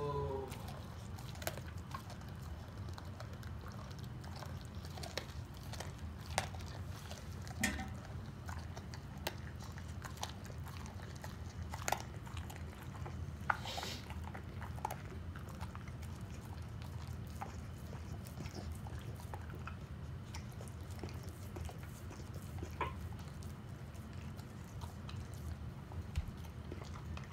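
A pit bull biting and chewing on half a raw chicken, with irregular sharp crunches and gnawing noises, over a steady low hum.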